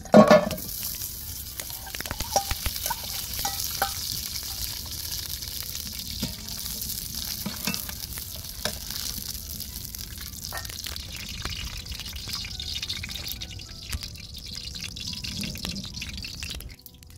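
Chunks of solid fat hit a hot steel pan with a loud sizzle, then melt with a steady hiss. A slotted metal spatula pushes them around, with scattered clicks and scrapes against the pan.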